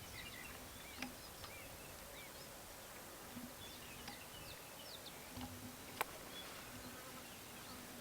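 Faint twittering of small birds: many short, scattered chirps, with a single sharp click about six seconds in.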